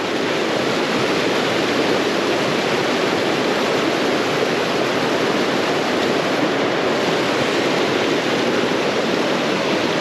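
Creek water rushing steadily, an even, unbroken hiss of flowing water.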